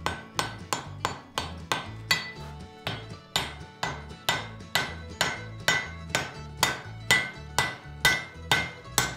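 Hand hammer striking glowing steel on an anvil in steady blows, about three a second, each with a short metallic ring, while a forge weld is set at welding heat with sparks flying. Background music plays underneath.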